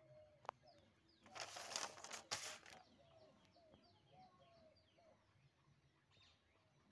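A sheet of a printed exam paper being turned over, a papery rustle and flap lasting about a second and a half. Faint birds chirp in the background.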